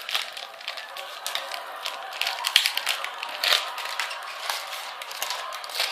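Yu-Gi-Oh trading cards being handled and flicked through by hand: a run of light, irregular clicks and rustles.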